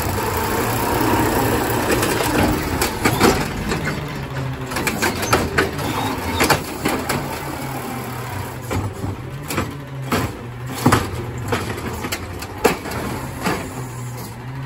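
Natural-gas engine of a Peterbilt 520 side-loading garbage truck running steadily while its automated arm lifts a recycling cart, shakes it empty into the hopper and sets it back down. Repeated clatters and bangs of the cart and recyclables tumbling into the truck ring out over the engine hum.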